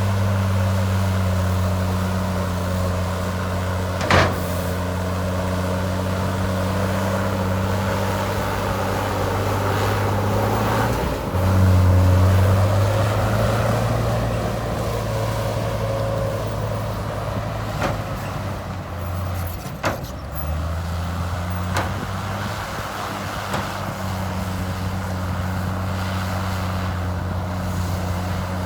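Heavy diesel earthmoving machinery running steadily, with a sharp metallic clank about four seconds in. About eleven seconds in the engine note dips and then swells louder for a couple of seconds, and a few lighter knocks follow later.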